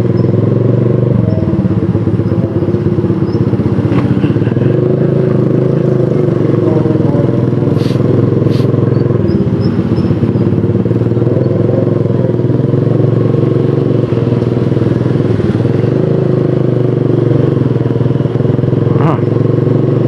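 Motorcycle engine running steadily while being ridden, with a few short clicks over it.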